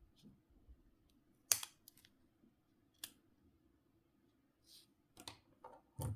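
Sharp clicks and taps of a Nokia C5-00 mobile phone and small tools being handled during disassembly: a few separate clicks, the loudest about a second and a half in, another about three seconds in, and two or three more near the end, with a soft scrape between.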